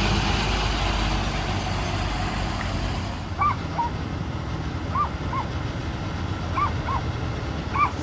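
A vehicle engine idling with a steady low rumble. From about three and a half seconds in, a bird gives short chirps, mostly in pairs, about four times.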